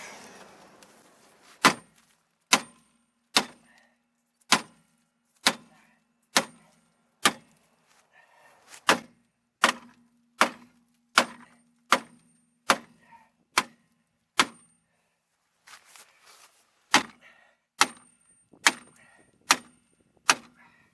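Repeated hammer blows on the seized rear wheel of a 2002 Chevy Malibu, struck to break it free: about twenty sharp strikes a little under a second apart, each ringing briefly like metal, with a short pause partway through.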